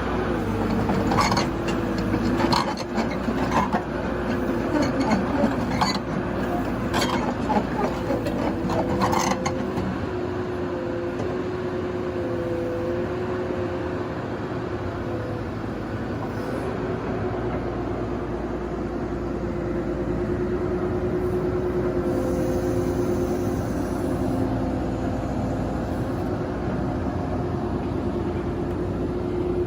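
CAT 313DCR hydraulic excavator running with a steady, even hum. Several sharp knocks come in the first ten seconds as the machine works; after that it simply runs.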